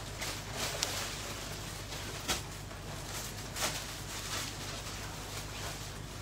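Steady low background hum with a few short clicks, the sharpest a little over two seconds in.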